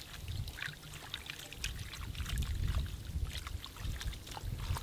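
Hands squishing and swirling raw chicken pieces in a steel bowl of water as the meat is washed, with scattered wet squelches and small splashes over a low rumble.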